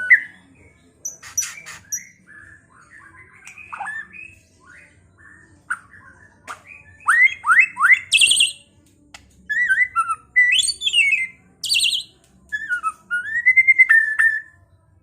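White-rumped shama (murai batu) singing: a varied run of whistled phrases with sliding notes, a quick series of three rising sweeps, and short high rattling notes, the song used as a lure to rouse other shamas.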